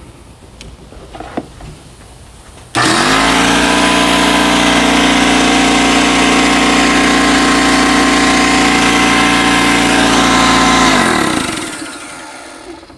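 A Ridgid portable electric air compressor starts abruptly about three seconds in and runs with a loud, steady motor-and-pump hum. About eleven seconds in it is switched off and winds down, falling in pitch over a second or so. A few faint handling clicks come before it starts.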